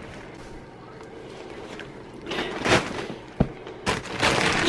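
Plastic mailing bag rustling and crinkling as a package is opened and a sweatshirt pulled out, starting about two seconds in, with a single sharp click in the middle of it.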